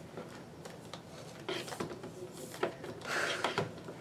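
Soft rustling and light clicks of a doll in a wool plaid circle skirt being handled, the skirt fabric brushing against the hands, with two stronger rustles about a second and a half in and about three seconds in.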